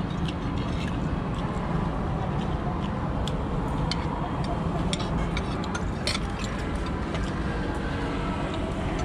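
A steady low background rumble, with scattered sharp clinks and clicks of utensils and shells against plates and bowls during a meal.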